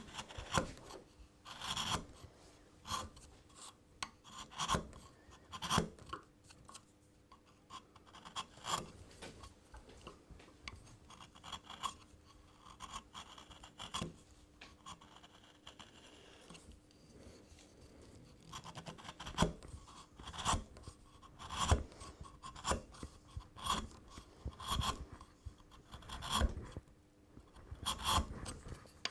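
A bevel-edge chisel paring thin shavings from wood by hand: a series of short scraping cuts at irregular intervals, sparse in the middle and coming about once a second in the last third. It is undercutting the joint, taking a fraction of a millimetre from the inside below the marking gauge line so no high spots stop the half-lap dovetail seating snugly.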